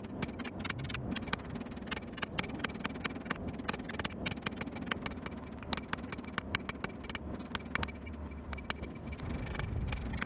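A running blacksmith's forge: a steady low rumble with many irregular sharp clicks and taps over it.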